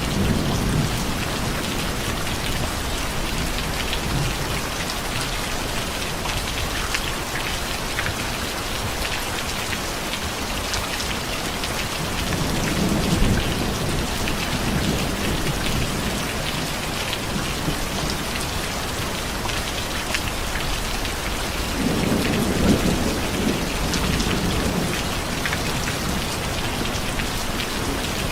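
Steady heavy rain falling on a surface, with low rolls of thunder swelling up about halfway through and again near the end.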